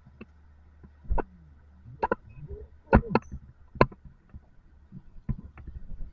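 Motorized bicycle coasting through a turn with its two-stroke engine quiet: a low steady hum under scattered sharp knocks and clicks, the loudest about a second in, at two and three seconds, and near four seconds.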